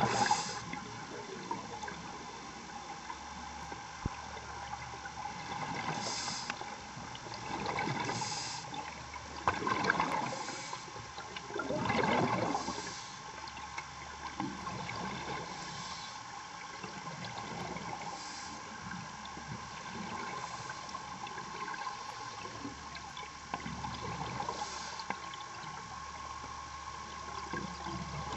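Underwater water and bubble noise that swells in surges every couple of seconds, over a steady hum.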